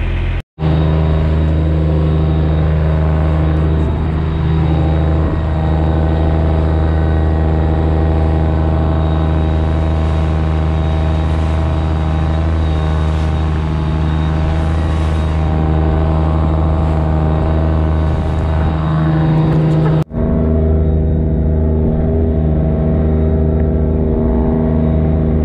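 Fishing boat's inboard engine running steadily under way, a deep hum of unchanging pitch, with wind and water hiss over it. The sound cuts out abruptly twice, about half a second in and about twenty seconds in; after the second break the hiss falls away and the engine hum is left.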